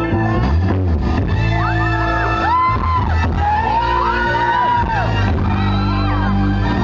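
Orkes Melayu band playing live through a stage PA: steady bass notes under a melody line that slides and bends in pitch.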